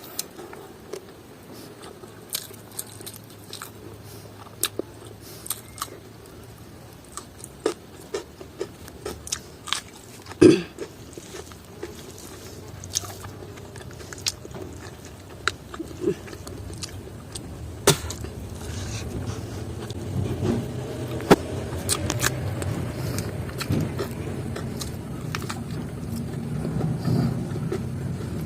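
Close-miked chewing of pork and rice, with scattered wet mouth clicks and crunches and one louder click about ten seconds in. A low rumble grows steadily louder through the second half.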